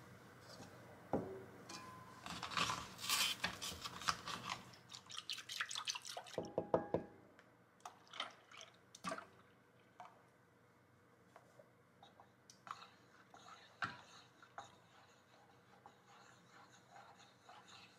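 Milk and drinking yogurt poured into a rice cooker's inner pot, splashing and dripping, then stirred with a spatula that clicks and scrapes against the pot. The pouring and handling are loudest in the first half; the stirring clicks are quieter and sparser.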